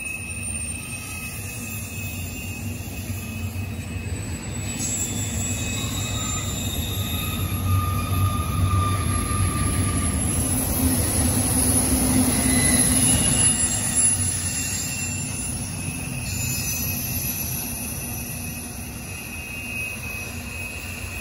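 A double-stack intermodal freight train's well cars roll by, making a steady rumble of wheels on rail with high-pitched wheel squeal over it. The train grows louder toward the middle, then fades as the end of it passes and moves away.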